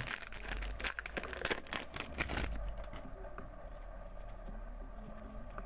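A trading card pack's wrapper being torn open and crinkled in the hands: rapid crackling rustle for about two and a half seconds, then fainter rustling as the cards are handled.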